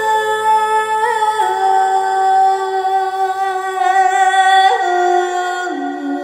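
Slow background music of long held notes whose pitch steps down a few times, most clearly about a second and a half in and again near the end.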